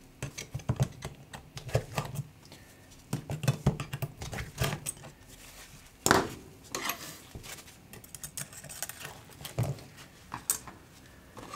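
Irregular light clicks and small metallic ticks from a precision screwdriver and tweezers on the screws and metal shield plate inside an opened iPhone 12 Pro, with a sharper click about six seconds in.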